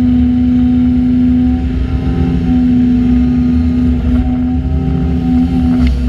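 Diesel engines of a Hyundai Robex LC220-9A excavator and a Terex TA9 site dumper running steadily during loading, with a strong constant hum over a low rumble.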